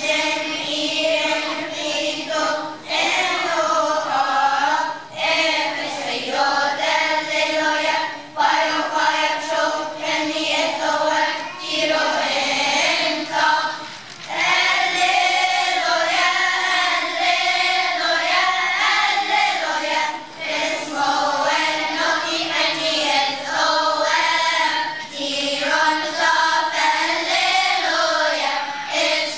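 Children's choir singing together, phrase after phrase, with short pauses between the lines.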